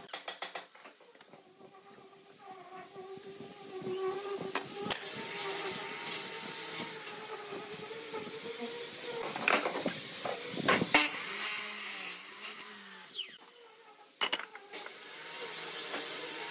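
Wooden boards being handled on a miter saw table: knocks, scrapes and clicks as pieces are set down and slid against the fence, and a tape measure and pen marking the cut, over a steady background hum. The loudest knocks and scrapes come a little past the middle.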